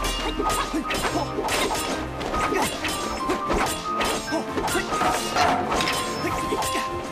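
Fight sound effects of a staged sword fight: a quick, irregular string of sharp clashes and blows over background music.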